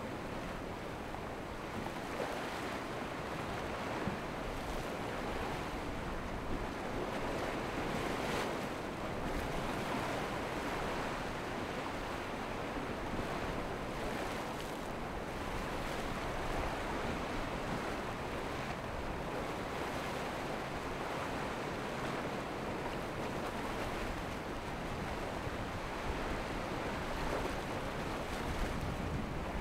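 Breaking waves and surf with steady wind noise on the microphone, an even rushing sound without any clear engine note.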